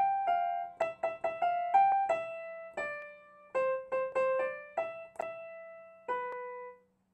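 Piano keyboard played one note at a time: a short, simple melody of quick struck notes and a few held ones, ending on a held note that is released near the end.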